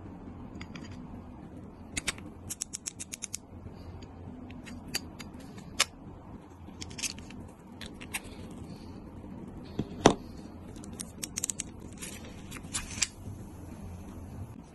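Small metal reel parts clicking and ticking as a fishing reel with its aftermarket CNC handle and star drag is handled: a quick run of clicks about two seconds in, scattered clicks, one sharper click about ten seconds in, and more clicks near the end.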